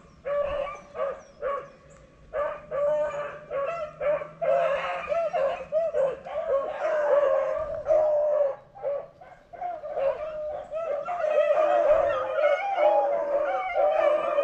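A pack of rabbit dogs baying on a rabbit's trail. The bays come in broken bursts at first, then overlap into a near-continuous chorus in the second half.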